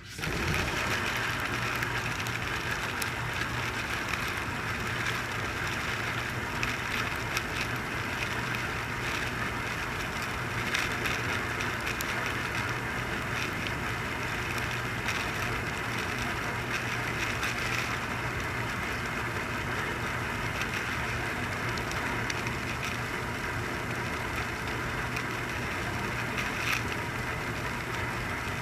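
Dishwasher running: a steady motor hum under a constant hiss, with scattered faint clicks; it starts abruptly.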